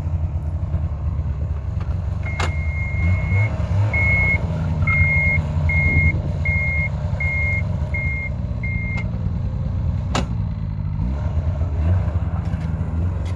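Bombardier snowmobile engine running at low revs, with a warning beeper sounding over it, typical of the snowmobile in reverse. The beeper gives one long beep, then about seven short beeps in quick succession, and stops about nine seconds in. A sharp click comes as the beeping starts and another about ten seconds in.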